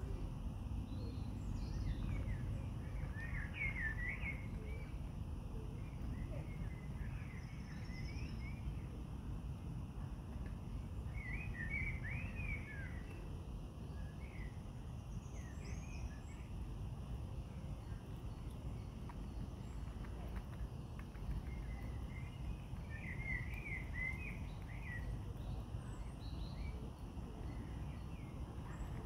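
Steady low background rumble with small birds chirping in short twittering bursts: about three seconds in, again around twelve seconds, and near the end.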